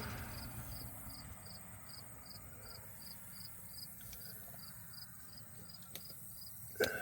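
A cricket chirping steadily, nearly three short high chirps a second. A sharp click sounds near the end.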